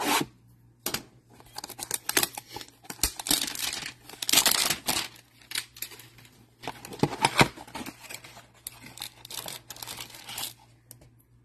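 Plastic shrink-wrap being torn and crinkled off a cardboard trading-card hanger box, in irregular rustles and sharp crackles, with the cardboard box being pulled open near the end.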